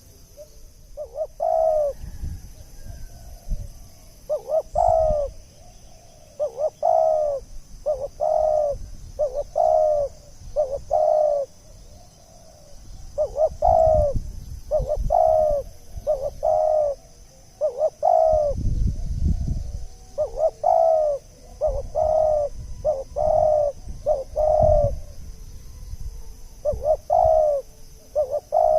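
Spotted dove cooing over and over, a lure call: short, arched coos in phrases of three to five, each phrase followed by a brief pause.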